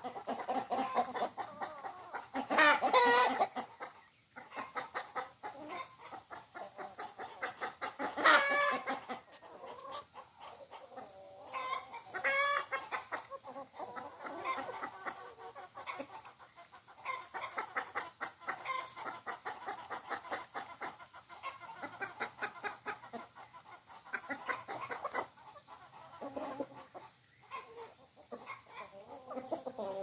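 A flock of domestic hens clucking continuously as they feed, with a few louder drawn-out calls about three, eight and twelve seconds in.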